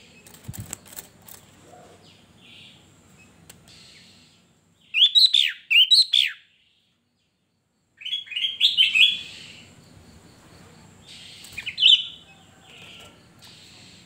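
Sooty-headed bulbul (kutilang) singing short, loud phrases of quick rising and falling whistled notes in three bursts, about five, eight and twelve seconds in. A few light knocks come near the start.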